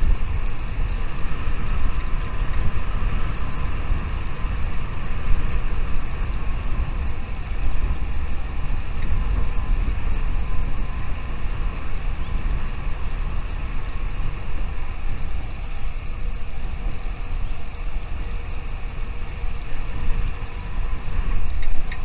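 Wind buffeting the microphone: a steady, loud low rumble that rises and falls with the gusts.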